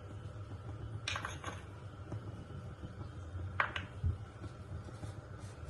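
Light clinks and taps of a utensil against a pan as a spice mixture is tipped into the heating water: a few quick taps about a second in, then two sharp clinks a little after three and a half seconds, over a low steady hum.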